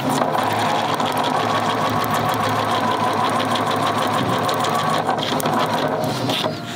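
Electric sewing machine running steadily, stitching pleats in place; it stops shortly before the end.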